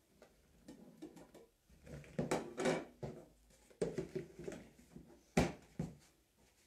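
Kitchenware being handled: a plate scraped and clattering against a plastic food container, then a plastic lid pressed on, with one sharp snap about five seconds in.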